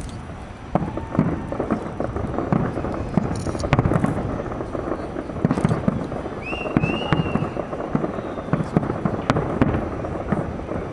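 Fireworks display: aerial shells bursting in many rapid bangs over continuous crackling. A short whistle rises and levels off about six and a half seconds in.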